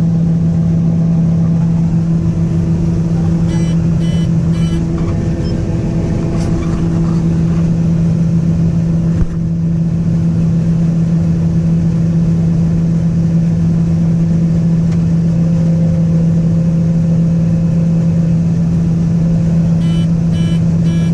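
Combine harvester engine running at a steady, unchanging drone, heard from inside the cab. A quick series of three electronic beeps sounds about four seconds in and again near the end.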